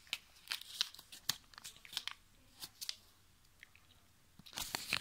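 Folded 20-euro paper banknotes being unfolded and handled, crinkling in short crackles that pause for about a second and a half and pick up again near the end.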